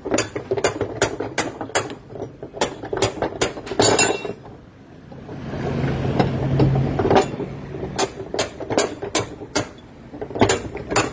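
Ratchet wrench clicking in quick, evenly spaced strokes while loosening the large mechanism nut at the centre of a top-load washing machine's tub, with a short break in the clicking around the middle.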